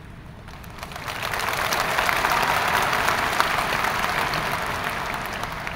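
Large crowd applauding, swelling about a second in and slowly dying away.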